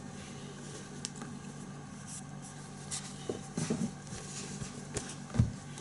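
A knife and whetstones being handled: a few light scrapes and taps of steel and stone, with a low thump near the end.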